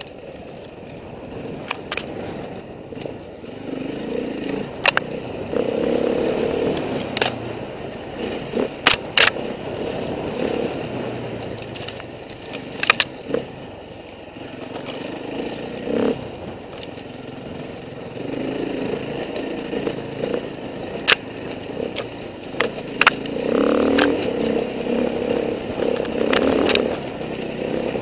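Enduro dirt bike engine heard from on board, the throttle opening and closing in swells every few seconds over a rough rocky trail. Sharp clacks and knocks from stones and the bike's chassis are scattered throughout.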